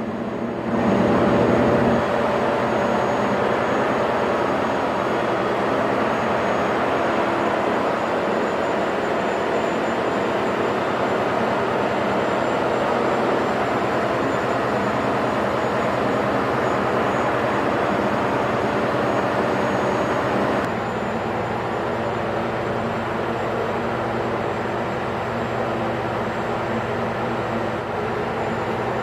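Ship's engine-room machinery running steadily, a dense mechanical drone with a fine rapid beat. About 21 seconds in, the drone shifts slightly lower in level and tone.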